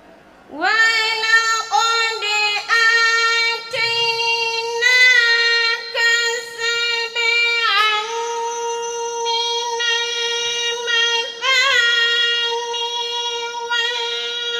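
A girl reciting the Quran in a melodic, sung tajwid style, beginning about half a second in. It is one long drawn-out phrase held on a steady note, with rising and falling ornaments.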